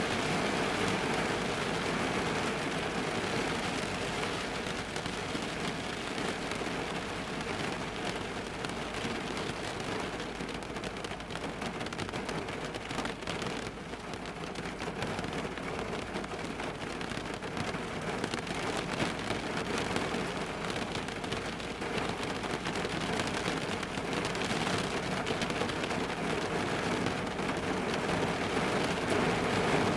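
Rain falling on the roof of a car, heard from inside the cabin: a dense, steady patter that eases slightly about halfway through and builds again toward the end.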